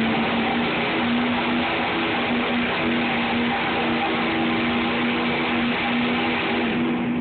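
Diesel pickup truck engine running at steady high revs under full load as it drags a weighted pulling sled, holding one unbroken droning note over heavy tyre and exhaust noise.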